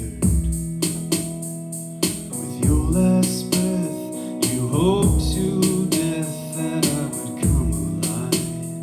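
Music: an instrumental stretch of a song, with a steady drum-machine beat under keyboard and guitar chords. A melodic line bends in pitch through the middle.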